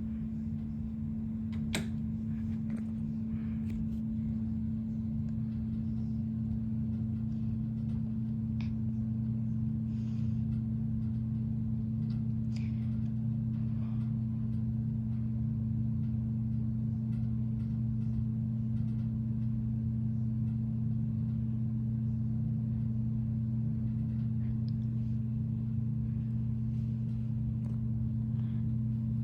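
Hampton Bay ceiling fan running with a steady, even motor hum, with a sharp click about two seconds in and a few faint ticks.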